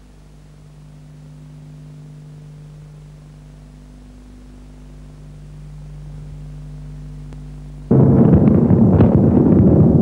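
A low steady hum, then about eight seconds in a film projector's mechanism cuts in suddenly, running loud and rumbling.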